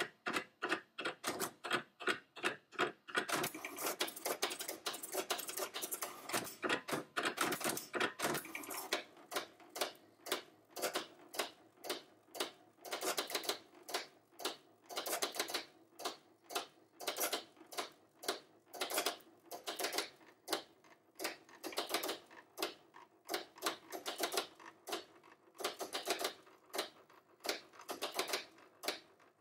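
HP 7475A pen plotter drawing its built-in demonstration plot: a fast, uneven run of mechanical clicks with a motor buzz under them as the pen carriage and paper drive make short strokes. The clicking is busiest in the first few seconds.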